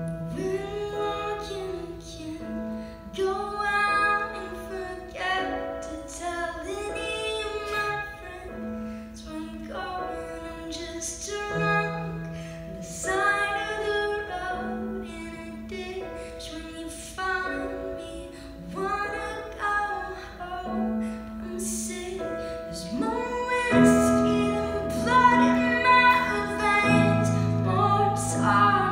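A woman singing live over sustained keyboard chords, growing louder near the end.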